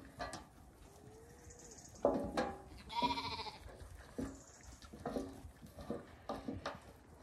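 Zwartbles lambs bleating, a string of short calls about once a second from a couple of seconds in, the loudest about three seconds in. The lambs have just been separated from their ewes and are calling for their mothers.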